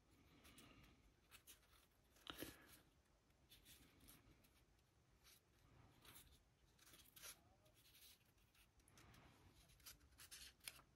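Near silence with faint scratchy strokes and a few light ticks: a large brush working a thinned wash over a miniature figure.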